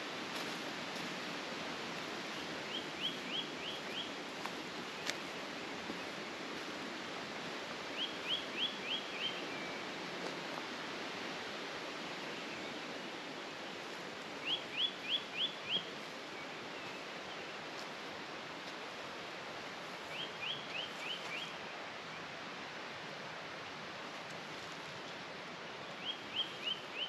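A small songbird repeating one short phrase of four or five quick, high, down-slurred notes, five times about every five to six seconds, over a steady rush of flowing water.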